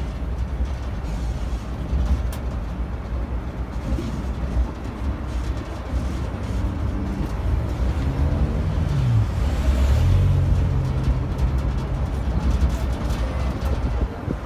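Steady low rumble of a tourist road train driving along, its engine and running noise heard from on board.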